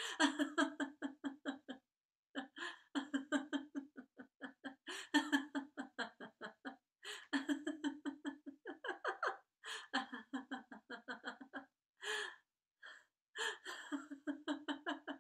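A woman laughing heartily on purpose, as a laughter-yoga exercise: long runs of rapid 'ha-ha-ha' pulses broken by short pauses and gasps for breath.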